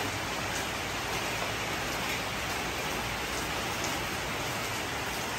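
Steady rain falling, an even hiss of drops on the ground.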